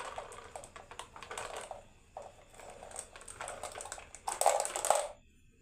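Marbles clattering down a wooden HABA marble run: rapid strings of clicks and rattles, loudest in a burst near the end before they suddenly stop.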